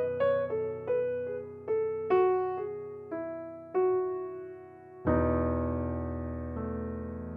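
Background piano music: a slow melody of single notes struck one after another, then a full chord about five seconds in that is left to ring and fade.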